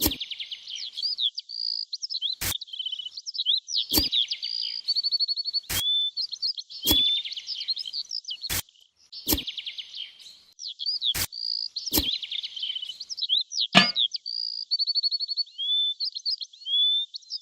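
Small birds chirping, with fast trills and short rising whistles, broken by sharp clicks every one to two seconds.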